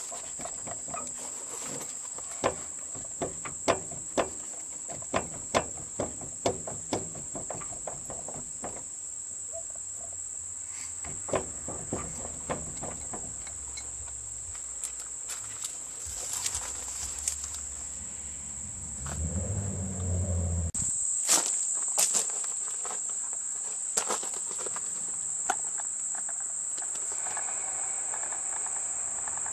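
Crickets chirping steadily in a high continuous trill. A run of sharp knocks, roughly one a second, sounds over the first dozen seconds, and a few more come after a brief low rumble.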